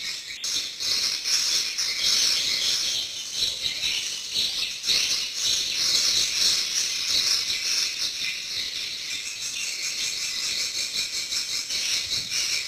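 Swiftlets (burung walet) calling: a dense, continuous, high-pitched rattling chitter of many birds at once, the kind of swiftlet call sound played to lure birds into a nesting house.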